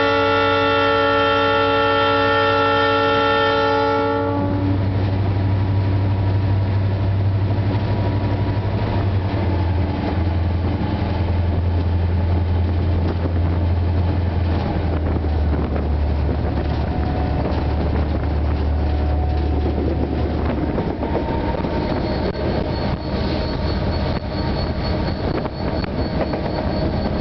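Diesel locomotive's multi-tone air horn sounding a chord for about four seconds, then Vale DDM45 diesel-electric locomotives running under throttle with a heavy low engine rumble that steps down in pitch twice, mixed with wheels on rail. A faint high whine comes in near the end.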